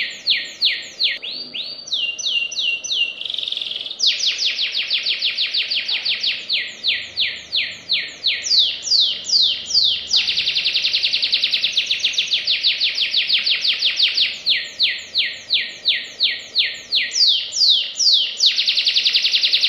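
White domestic canary singing a long unbroken song: strings of quick falling notes, several a second, alternating with very rapid, tightly packed trills, one about ten seconds in and another near the end.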